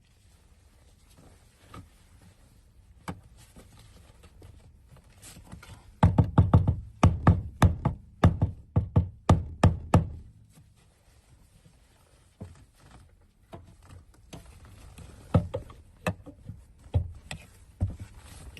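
Hammer driving a flat screwdriver against a fuel pump lock ring on the fuel tank to turn it loose. A quick run of more than a dozen sharp taps comes between about six and ten seconds in, then a few spaced taps near the end.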